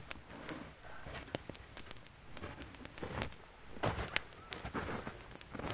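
Wood campfire crackling, with scattered sharp pops at irregular intervals.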